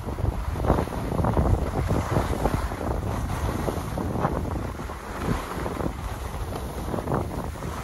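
Wind buffeting the microphone of a skier moving downhill, mixed with the hiss and scrape of skis on packed snow. Irregular gusts and scrapes, with no steady tone.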